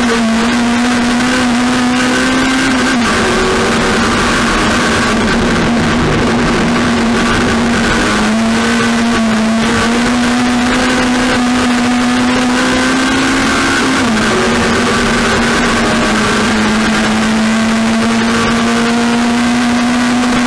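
A racing car's engine running hard and continuously, its pitch slowly climbing and then dropping back about three, eight and fourteen seconds in.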